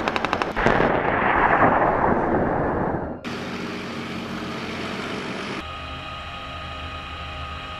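A rapid machine-gun burst ends just into the first second, then a Leopard 2 main battle tank's gun fires with a long rolling rumble that dies away over about two and a half seconds. A tank's engine then runs steadily, and from about six seconds a steady hum with several fixed tones is heard from inside the tank.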